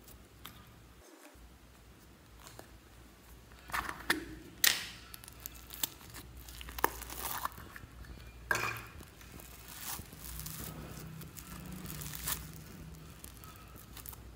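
Slime squished, stretched and torn apart by hand, giving sticky crackling and tearing sounds in a series of sharp bursts. The first few seconds are faint, and the crackling starts about four seconds in.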